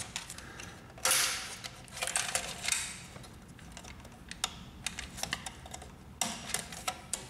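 Light clicks, taps and scrapes of wires and plastic being worked out of the slots around a laser printer's power supply board, the loudest a short rustle about a second in.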